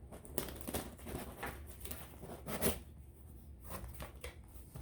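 Packaging being handled as a subscription box is opened by hand: a series of short rustling and tearing sounds, the loudest about two and a half seconds in.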